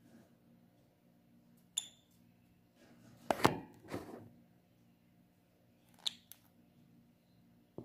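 Lovebirds moving about in a wire cage: a few short sharp clicks, and a louder burst of scuffling knocks about three and a half seconds in, over a low steady hum.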